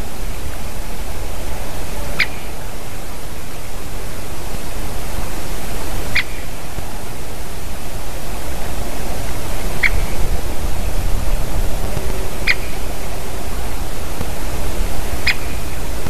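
Great spotted woodpecker giving five short, sharp 'kik' calls a few seconds apart, over a steady hiss.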